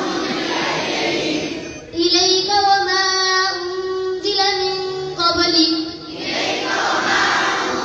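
Children singing together in unison. For a few seconds in the middle, one clear child's voice holds long, steady notes with short breaks, then the group voices come back.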